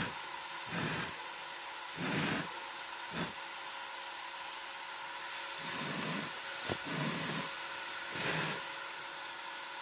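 Steady whirring hiss of 3D printer fans running, with a few soft, brief sounds every second or two on top.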